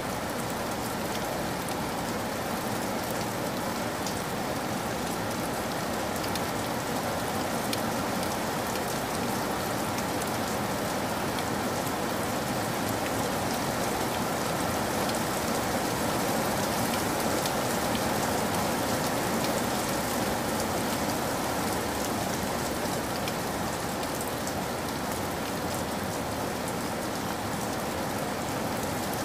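Steady rain falling, an even rush of water with many small drop ticks running through it, unchanging throughout.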